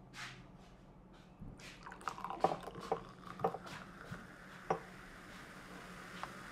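A dark carbonated drink poured from a small glass bottle into a glass. It starts about two seconds in, with irregular glugs from the bottle neck over a steady fizz that builds as the glass fills with foam.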